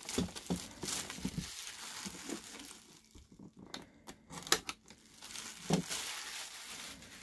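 Plastic shrink wrap being pulled off a cardboard box and crumpled by hand: a crinkling rustle, then a few sharp crackles in the second half as the wrap is balled up.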